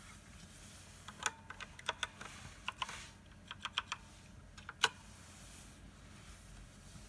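Typing on a computer keyboard: short groups of key clicks, then one louder single keystroke about five seconds in as the command is entered.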